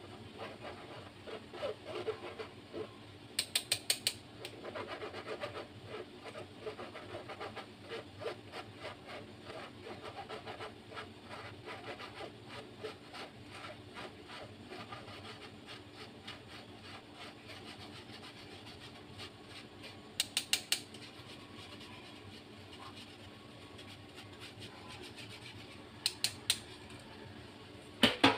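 A metal spoon and fingers scraping flour through a wire-mesh sieve: a steady fine rasping. Quick runs of sharp metallic taps come a few seconds in, about two-thirds through and near the end.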